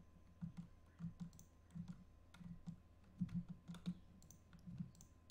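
Faint, irregular clicks of a computer keyboard and mouse as keys are pressed, the sharpest about three seconds in.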